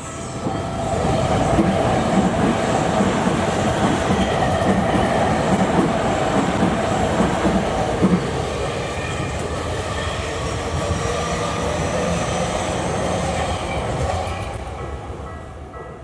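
A Tokyu Toyoko Line train passing through a level crossing, wheels clattering over the rail joints. It builds within the first second, runs for about fourteen seconds and fades near the end. The crossing's warning bell rings under it.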